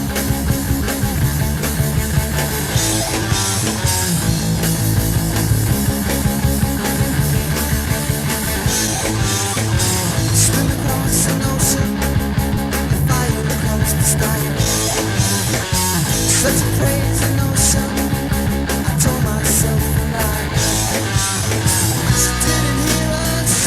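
Late-1970s rock band recording with guitars, bass guitar and drums playing a steady, driving beat.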